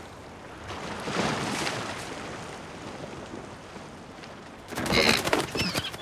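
Surf washing over a rock, then near the end a seagull's wings flapping hard in a rapid flurry with a short squawk as it is grabbed.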